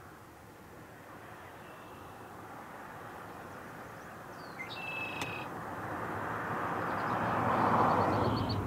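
A vehicle approaching and passing on the road, its noise building steadily to a peak near the end and then starting to fade. Short high bird calls sound over it a few times, including a quick trill near the end.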